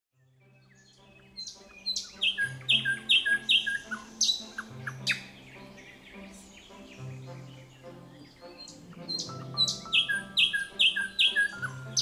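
A songbird singing phrases of loud, rapidly repeated notes, a little over two a second, over soft background music with low sustained chords. The song fades in, pauses in the middle and resumes near the end.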